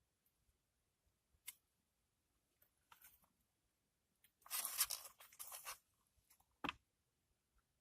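Quiet, with a few faint clicks and taps and, about four seconds in, a second and a half of crinkling, like plastic packaging being handled.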